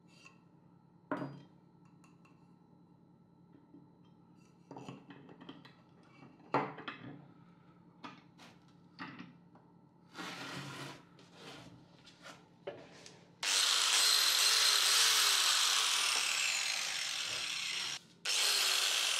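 Scattered knocks and scrapes of wood and metal as a board is set down and clamped in a vise. About two thirds of the way in, an angle grinder with a homemade toothed disc made from an oil-filter plate starts up loud with a high whine. It cuts out briefly near the end and starts again against the wooden board.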